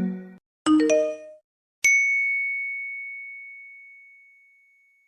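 Apple iPhone tones: the last notes of a melodic ringtone die away, then comes a short run of quick chime notes, then a single high bell-like ding that fades out over about three seconds.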